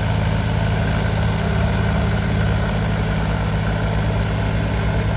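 Iseki 3510 tractor engine running steadily under load, hauling a long levelling board through flooded paddy mud on cage wheels.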